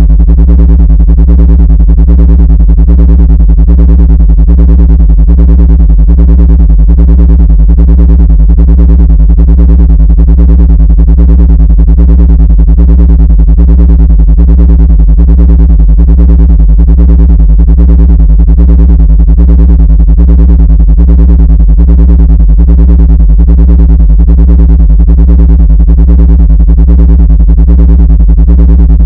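Loud, steady electronic drone: low-pitched synthesized tones with a stack of overtones and a fast, even pulsing, unchanging throughout. It is played as an ant-repelling sound frequency.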